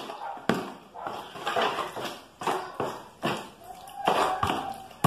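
Wall putty thinned with water and black pigment being mixed by hand in a basin: irregular wet strokes and scrapes, a few each second.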